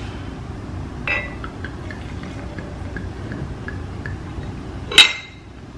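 Sparkling prosecco poured from its bottle into a wine glass, with a run of small regular ticks as it pours and fizzes. A light clink about a second in and a sharp glass clink about five seconds in.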